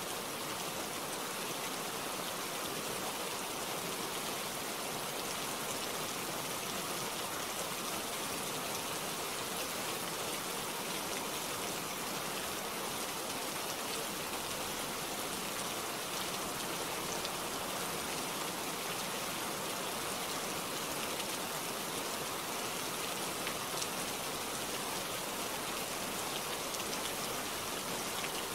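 Steady rain: an even, unbroken hiss of falling drops with faint fine ticks, holding the same level throughout.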